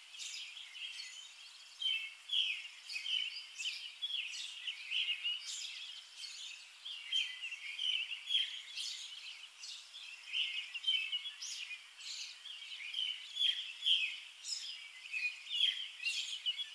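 Small birds chirping and twittering, many short high calls one after another, thin with no low end.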